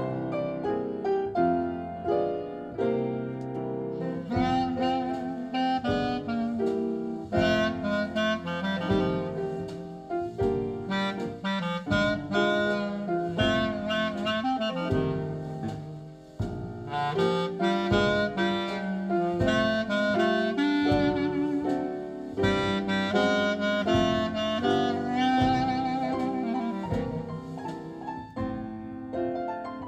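Instrumental audiophile test-disc music playing: a melody on a wind instrument, some of its held notes wavering in pitch, over piano.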